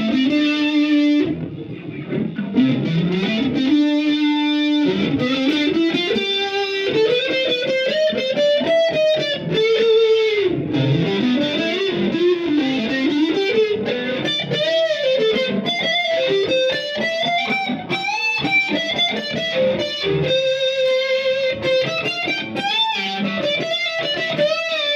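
Electric guitar, an Oscar Schmidt OS-50, played through a Fender Mustang LT25 modelling amp on one of its factory presets: a single-note lead line with many string bends and slides and a few held notes.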